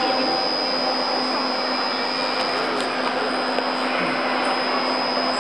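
Steady mechanical whir, even and unchanging, with a constant high whine and a low hum under it.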